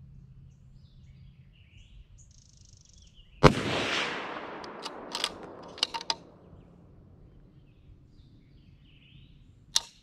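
Single bolt-action rifle shot: one sharp crack about three and a half seconds in, with an echo that fades over about two seconds. Then a few short metallic clicks as the bolt is worked, and another click near the end.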